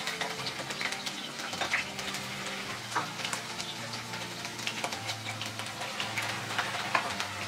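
Pieces of cut okra sizzling and crackling in hot oil as they are added to the pan to shallow-fry, with many small pops throughout.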